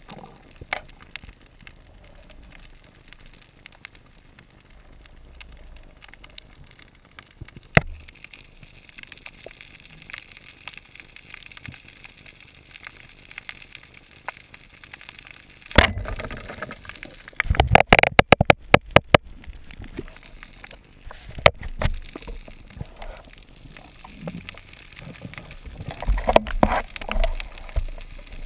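Underwater noise with scattered sharp knocks and clicks, including a loud knock followed by a quick run of clicks lasting about two seconds, and another cluster of knocks near the end.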